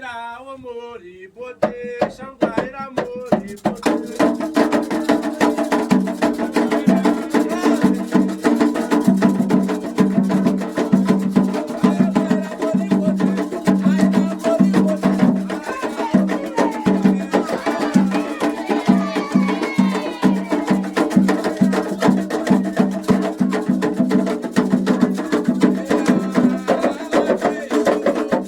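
Candomblé ritual music: atabaque hand drums and a struck bell playing a fast, dense, steady rhythm that builds in over the first few seconds, with voices singing over it around the middle.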